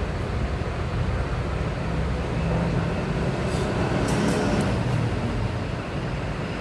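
Steady low rumbling background noise, with a few faint small clicks about three and a half to four and a half seconds in.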